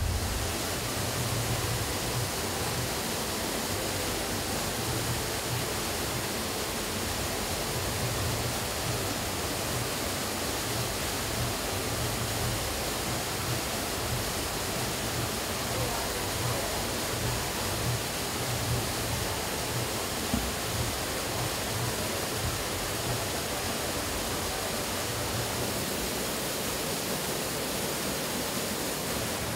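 Steady, even rush of a waterfall pouring down a rock face into a plunge pool.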